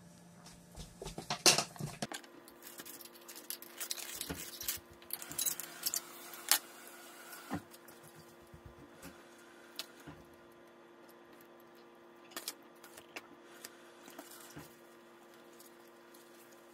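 Light clicks, knocks and scrapes of black ABS pipe fittings and the metal dauber-lid of an ABS cement can being handled, busiest in the first half and sparse later, over a faint steady hum.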